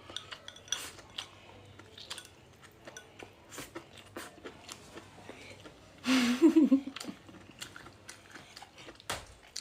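Close-up eating sounds: chewing and crunching of food, with scattered small clicks. About six seconds in comes a brief, louder sound with a wavering voice in it.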